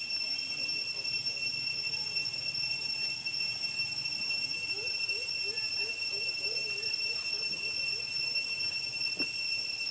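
Steady high-pitched buzzing drone of cicadas. A run of short rising chirps, about three a second, comes through from about five to eight seconds in.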